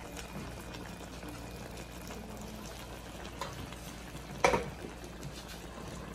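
Crab and shrimp sauce simmering in a wok: a steady bubbling with small crackles, and one sharp knock about four and a half seconds in.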